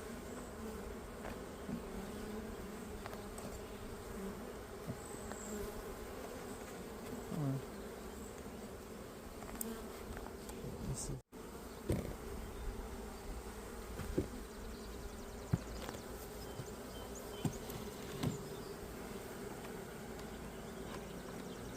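A mass of honeybees buzzing steadily in an opened hive, with a few light knocks and clicks in the second half.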